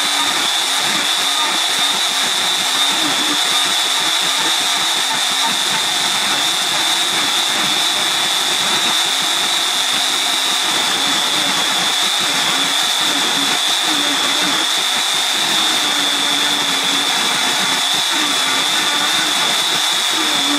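A homemade CNC router's spindle running steadily with a high whine as its bit carves into a wooden board, with a lower tone that wavers as the cut goes on.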